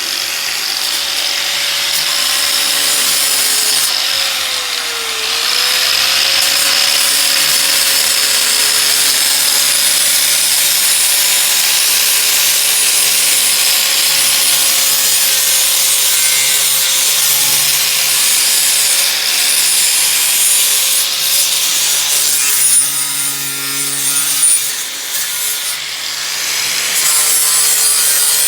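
A power sander running continuously against the rusted metal of a 1957 International Harvester, grinding off old rust. Its motor tone sags briefly about five seconds in, as if pressed harder, and the sound goes uneven for a few seconds near the end.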